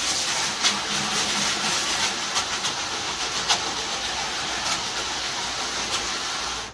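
Garden hose spray nozzle on its jet setting, blasting a hard stream of water against a dust-caked window screen and wire mesh: a steady hiss with faint spatters. It cuts off suddenly at the end.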